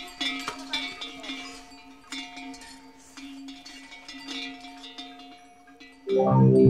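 Small metal bells or chimes jingling over a few steady ringing tones, the strikes thinning out and growing quieter. About six seconds in, loud, low-pitched rhythmic music comes in suddenly.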